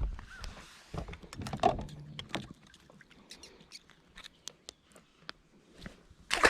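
Irregular light clicks and knocks of handling noise in a fishing boat, busiest a second or two in, with a louder scuffing burst near the end.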